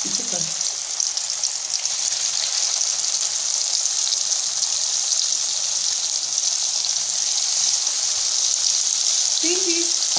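Coated fish fillets deep-frying in hot oil in a small karahi: a steady, crackling sizzle of bubbling oil that grows slightly louder toward the end.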